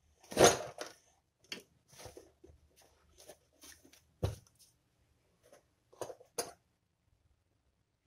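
Hands handling souvenir fridge magnets on a tabletop: a loud rustle and knock about half a second in, then scattered light clicks and rustles, a sharp tap just after four seconds, and two more knocks around six seconds.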